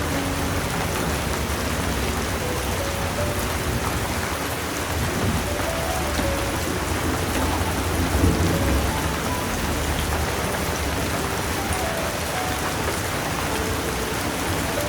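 Steady rain with a low rumble of thunder that swells and peaks about eight seconds in, under a slow, soft piano melody.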